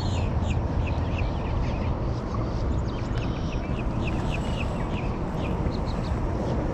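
Birds chirping: many short, high chirps that keep coming throughout, over a steady low rumble.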